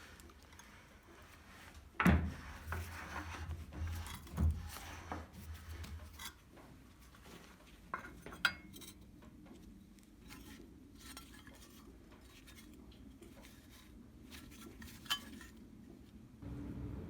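Metal parts clinking and knocking as they are handled and set down on a hard surface. The loudest knock comes about two seconds in, with a few lighter clinks scattered after it.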